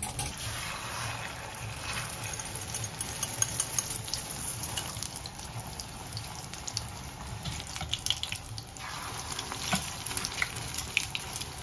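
Beaten egg frying in hot oil in a small saucepan: a steady sizzle with scattered crackles and pops, more of them in the last few seconds.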